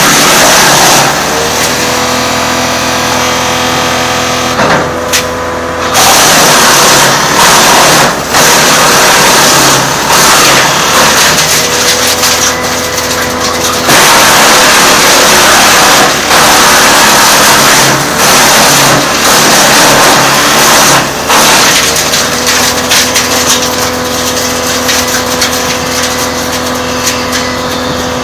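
Chipit wood chipper's engine running steadily. From about six seconds in to about twenty-two seconds in, loud, ragged grinding noise stops and starts over it as material is fed through and chipped, with a short steady stretch in between. Near the end the engine runs on steadily.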